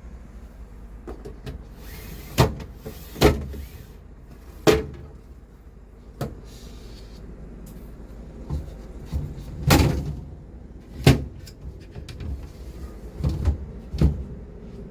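A series of irregular knocks and bumps, about eight of them spread unevenly, over a low steady rumble.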